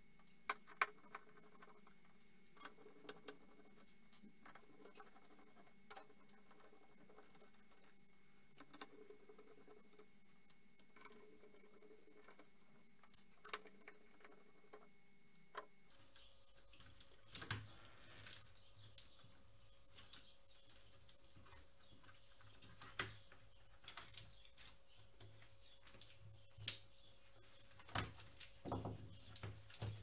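Scattered small clicks and taps of hands and a screwdriver on the plastic housing and key plate of a partly disassembled Razer BlackWidow Ultimate mechanical keyboard, sparse at first and busier past the middle, over a faint steady hum.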